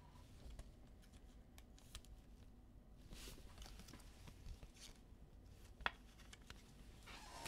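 Near silence with faint rustles and a few soft clicks of trading cards being handled and flipped through one by one.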